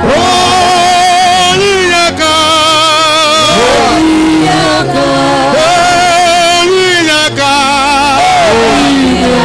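Gospel worship song: a lead voice sings long held notes with a wavering vibrato and short gliding runs over a steady instrumental backing.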